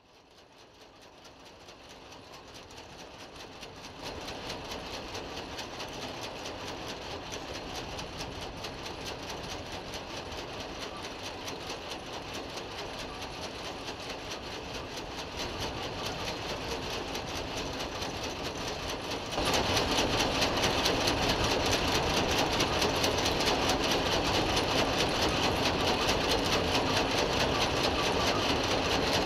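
Grain-terminal conveyor machinery running with a fast, even mechanical clatter. It fades in at the start and grows louder in steps, about four seconds in and again near twenty seconds.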